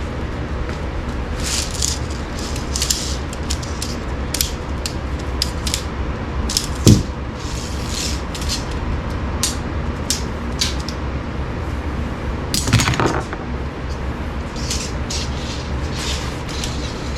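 Aluminum tent poles clicking and clinking and tent fabric rustling as a tent is put together, with a sharp knock about seven seconds in and another near thirteen seconds, over a steady low hum.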